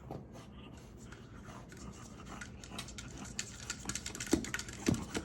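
A French bulldog rummaging and chewing at something: a growing run of scratches and clicks that thickens after a couple of seconds, with two dull thumps near the end.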